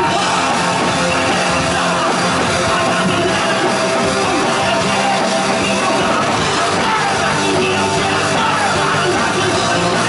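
Rock band playing live, loud and steady, with vocalists singing into handheld microphones over the band.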